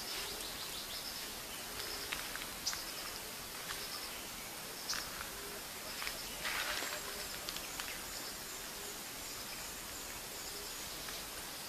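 Steady outdoor background noise with faint animal calls recurring every second or so, and a few brief rustles, the loudest about six and a half seconds in.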